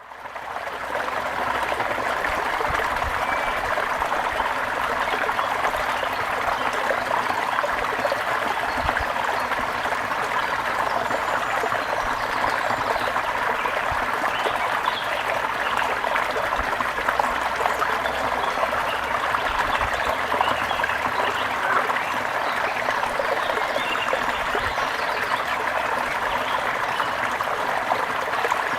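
Fast-running brook babbling: a steady, loud rush of flowing water that fades in over the first second.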